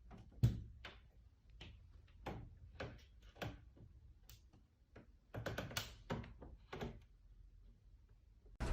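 A series of faint, irregular knocks and taps, about a dozen in all; the loudest comes about half a second in and several come close together in the second half.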